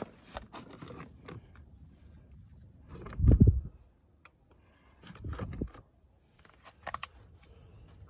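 A person's heavy breathing puffing onto the microphone twice, loudest about three seconds in and again about two seconds later, with small clicks and scrapes of the camera being handled.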